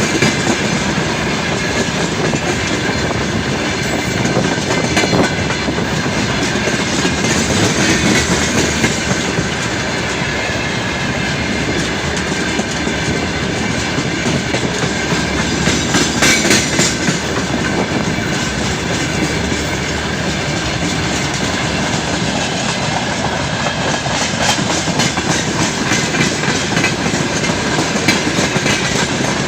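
Freight train wagons rolling steadily past, their wheels clacking over the rail joints with a continuous rumble of running gear.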